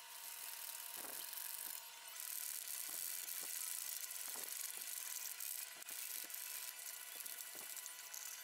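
Hand sanding of a bare maple bass fingerboard with a long sanding block, a rasping hiss in quick back-and-forth strokes, the turns marked by light knocks about one or two times a second.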